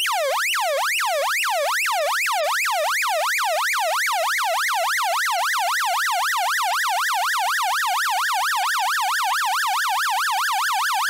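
A 1970s stall warning tone generator from an Avro Shackleton sounding its frequency-modulated warning tone, recorded straight from its output. It is a repeating swoop, each one dropping then rising in pitch, and it quickens steadily from about three to about four swoops a second. The quickening warble is the sign of the simulated angle of attack being raised towards the stall.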